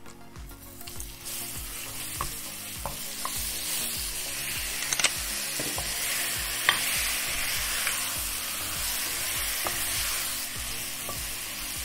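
Marinated lamb pieces sizzling as they fry in hot oil in a pot; the sizzle swells about a second in. A spatula stirs them, knocking and scraping against the pot in scattered clicks.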